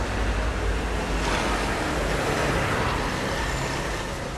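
Road traffic noise, a steady low rumble that swells for a couple of seconds in the middle, as a vehicle passing by would, then eases off again.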